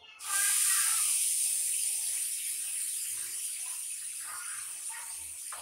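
A loud steady hiss, like running water or escaping air, starts abruptly about a quarter second in and slowly fades, with a sharp click near the end.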